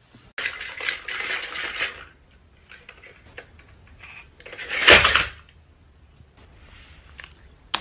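Clattering and knocking of hard objects: a rattling clatter over the first two seconds, scattered small knocks, a louder crash about five seconds in, and a sharp click near the end.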